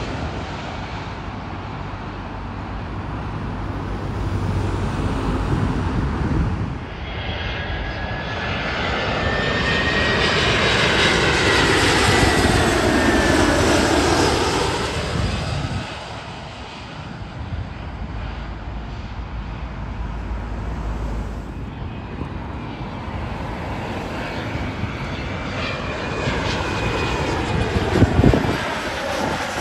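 Jet airliner on final approach passing low overhead. Its engine noise swells to a peak about ten to fifteen seconds in, with a high whine that falls in pitch as it moves away. Another aircraft's whine builds near the end, and a brief sharp knock comes just before the end.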